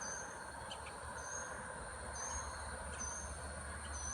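A bird repeating a short, high chirp about once a second, over a steady drone of insects at the pond's edge.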